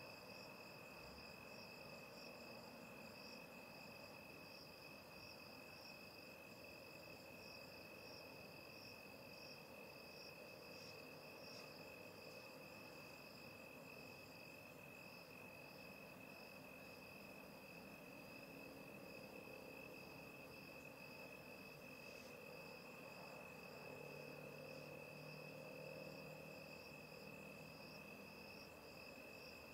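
Faint insects chirping, crickets by their sound: two steady high trills, one continuous and a higher one pulsing rapidly, over a faint background hum.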